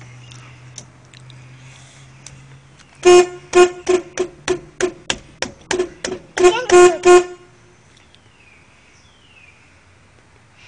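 1985 Ford Ranger's horn tooted in a quick run of a dozen or so short honks, starting about three seconds in and lasting about four seconds, the last few held a little longer.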